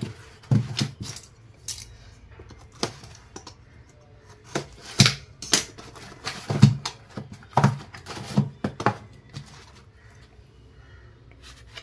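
Cardboard box being handled and opened by hand: irregular taps, knocks and scrapes as the inner carton slides out, with the metal fountain tins inside knocking about.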